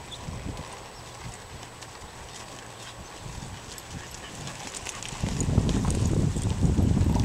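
Muffled hoofbeats of a ridden pinto horse on a soft dirt arena. They are faint at first, then from about five seconds in a much louder low rumble comes in as the horse passes close.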